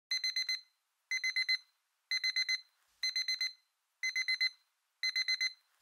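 Alarm clock going off: an electronic beep alarm sounding in groups of four quick high beeps, one group about every second, six times.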